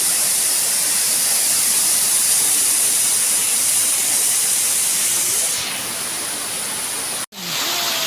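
Waterfall's rushing water: a steady hiss of falling water that drops a little in level about five and a half seconds in and cuts out for an instant near the end.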